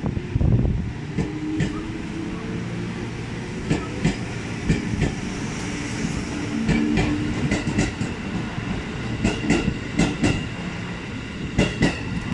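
JR 211 series electric multiple unit rolling along the platform with a steady low running hum. Its wheels click over rail joints, often in pairs, several times.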